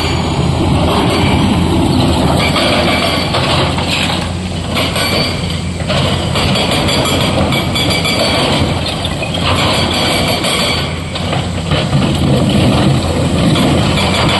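Heavy diesel engines running steadily: a dump truck at first, then a SANY SY225 excavator whose steel bucket scrapes and clatters through broken stone.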